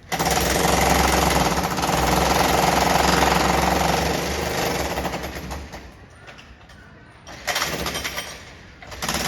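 Electric demolition hammer chiselling up a concrete floor during a flat renovation, heard through the building from a neighbouring flat. A long run of rapid hammering with a low thrum tails off about five seconds in. A short burst follows near the end, and the hammering starts again just at the close.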